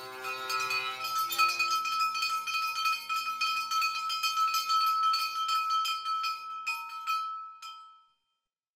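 A small hand bell rung rapidly again and again, one high note ringing on under the quick clapper strikes, then fading away. Harp notes die away at the start.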